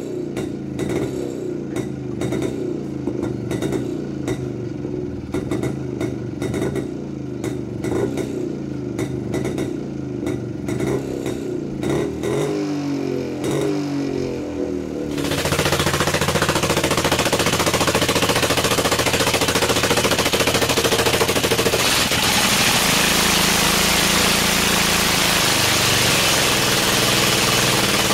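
Jawa 250 single-cylinder two-stroke motorcycle engine idling, with a few quick blips of the throttle just before the middle. About halfway through it cuts to a louder, harsher Jawa two-stroke running steadily with a rough, rapid clatter; this engine is stripped, with no exhaust pipe on its port.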